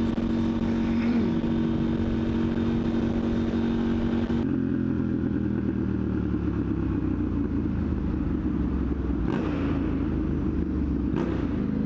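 KTM 890 Duke R parallel-twin motorcycle engine running through a catless Austin Racing exhaust, heard from the rider's own microphone. The note is steady at first, then about four and a half seconds in it drops to a lower, rougher note, with two brief sharp knocks near the end.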